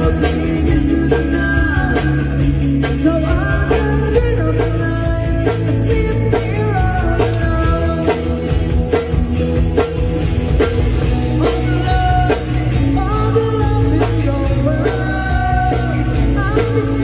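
Live rock band playing a song with a singer, drum kit, electric guitar and bass.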